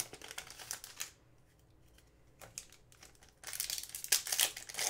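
Foil trading-card pack wrapper crinkling as hands handle it and pull it open. It crackles for about a second, goes quiet for about two seconds, then crinkles louder near the end.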